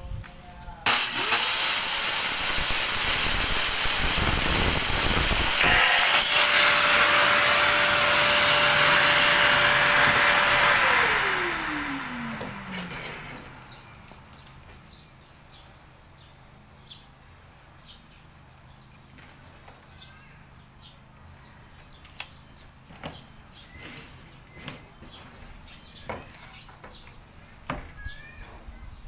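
Bosch plunge-style circular saw on a guide rail and a Bosch dust extractor starting together about a second in. The saw cuts through a wooden board for several seconds, then runs free with a steady whine. It is switched off and winds down in a falling pitch while the extractor's rush fades. Scattered light clicks and knocks follow from handling the saw, rail and board.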